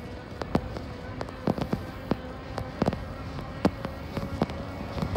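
Groove e-Ride e-bike rattling as it rolls along a concrete path: sharp irregular clicks and knocks, a few a second, over a faint steady whine.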